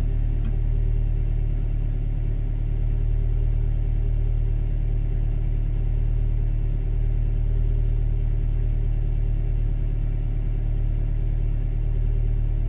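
Toyota Tarago's four-cylinder petrol engine idling steadily, heard from inside the cabin, at a cold fast idle.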